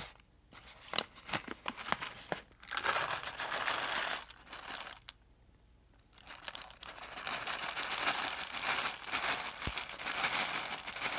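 Whole dark-roast coffee beans poured from a crinkly bag into a glass bowl, the beans rattling onto the glass and each other while the bag crinkles. There are two pours: a short one about two and a half seconds in and a longer one from about six seconds that runs until just before the end.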